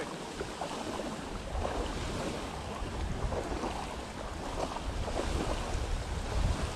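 Wind buffeting the microphone over the steady wash of surf.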